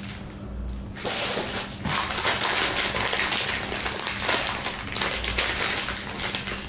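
A plastic bag crinkling and rustling as it is handled and opened, starting about a second in.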